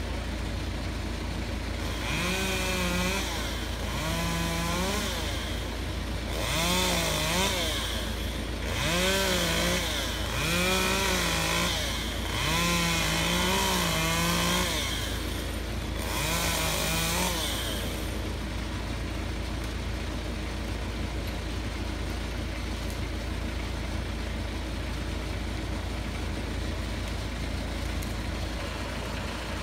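Chainsaw revved in about seven short bursts of a second or so each, its pitch climbing and holding, until about two-thirds of the way through. A truck engine idles with a steady low rumble underneath throughout, and is all that is left afterwards.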